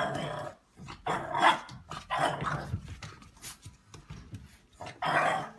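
Puppy barking at a cat in a few short bursts. The loudest comes about one and a half seconds in, and another comes near the end.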